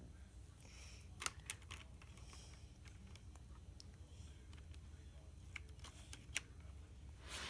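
Faint, scattered clicks and taps of plastic action figures and a toy playset being handled, a few sharp clicks about a second in and others spread through the rest.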